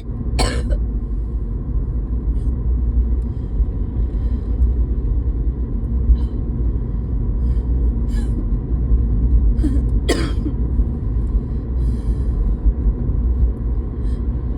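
A person coughing: a short cough right at the start and a harder single cough about ten seconds in, over a steady low rumble.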